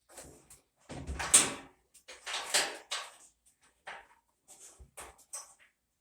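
Parts of a washing machine being handled: two longer scraping noises about one and two and a half seconds in, the first with a heavy thud, among scattered clicks and knocks.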